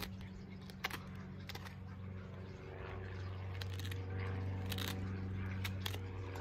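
A steady low engine drone that grows louder in the second half, with a few short scrapes and rustles of gloved hands working a ground sheet and wood chip.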